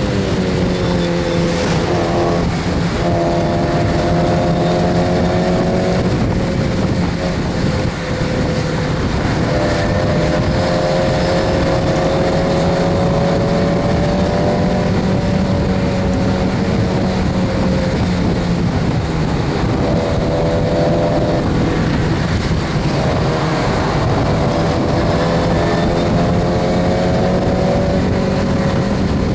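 Stock Mazda MX-5 Miata's four-cylinder engine at race pace, heard from inside the open cabin. The engine note climbs slowly and breaks off several times, over a steady rush of wind and road noise.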